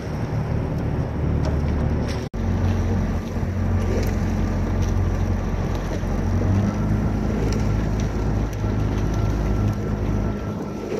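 Outboard motor of a following launch running steadily, with wind on the microphone. The sound cuts out for an instant about two seconds in, and the engine note shifts slightly about six seconds in.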